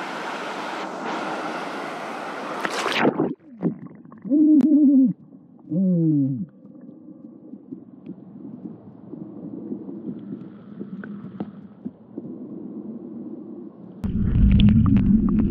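Wind and water noise at the surface of a river pool, then the sound drops to a muffled underwater hush as a waterproof action camera goes under, with two short falling tones about four and six seconds in. Near the end a loud low churning rush of bubbles and water breaks in.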